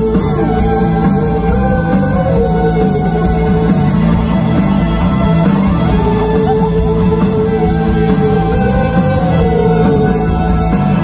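Live country-rock band playing through a PA: acoustic and electric guitars, fiddle, bass and drums, with long held melody notes that bend in pitch, heard from within the audience.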